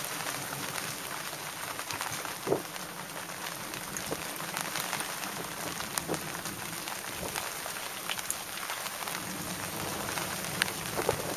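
Steady rain falling, with a few sharp ticks of drops striking close by. The loudest tick comes about two and a half seconds in.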